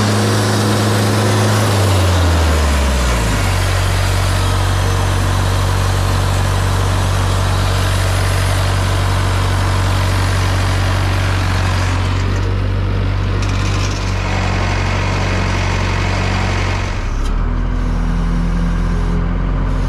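Wood-Mizer LT50 sawmill's engine running steadily, its note dropping about two seconds in as it comes under load, over the hiss of the band blade cutting through a redwood log. Near the end the hiss thins out and the engine note changes.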